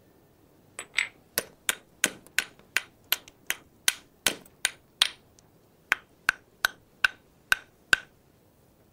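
Flint knapping: a small stone hammer taps along the edge of a flint flake to retouch it into a sidescraper. About nineteen sharp, clicking knocks come at roughly three a second, with a pause of about a second halfway through.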